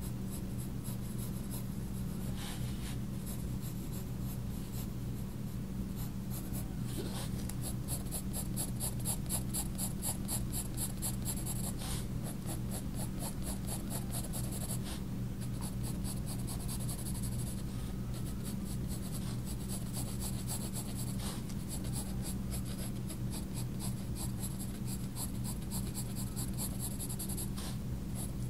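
Faber-Castell Polychromos coloured pencil scratching across sketchbook paper in rapid short hatching strokes, pausing briefly now and then, over a steady low hum.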